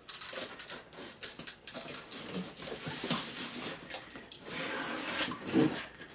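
Box cutter slicing through packing tape on a cardboard box: a run of short, scratchy strokes and crackles as the blade drags along the seam, the loudest coming near the end.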